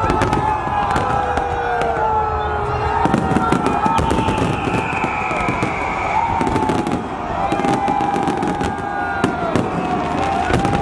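Aerial fireworks bursting and crackling in quick succession, with many sliding whistle-like tones running over the bangs.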